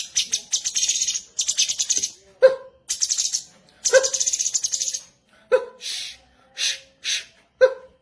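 Cucak cungkok song: bursts of rapid, high buzzy trills, each about half a second to a second long, broken by short, sharp lower notes about every second and a half, with a few separate drawn-out notes near the end.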